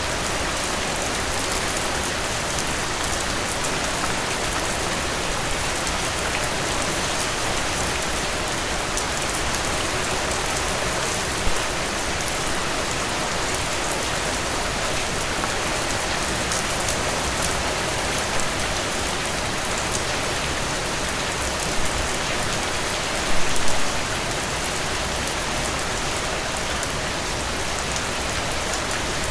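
Heavy rain falling steadily on a surface, a dense hiss of drops with a few brief louder splashes, the biggest cluster a little past two-thirds of the way in.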